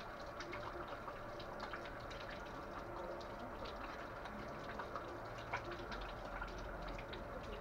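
A car passing along the street, its low rumble swelling and fading about five to seven seconds in, over a faint steady background scattered with small ticks.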